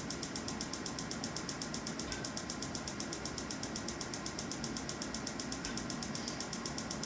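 Storz Medical focused (electromagnetic) shockwave therapy applicator firing, a steady run of rapid, even pulses at roughly eight a second.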